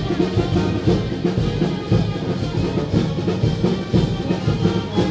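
Brass band music with drums and bass drum, brass carrying the tune over a pulsing beat; it cuts off abruptly at the end.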